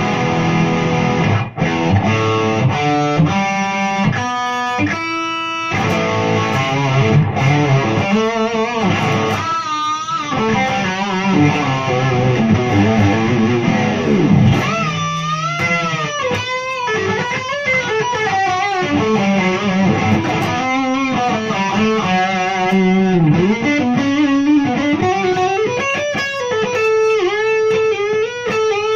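Tagima Memphis MG37FL electric guitar played lead: quick runs of notes in the first few seconds, then bent notes with a wide, wavering vibrato.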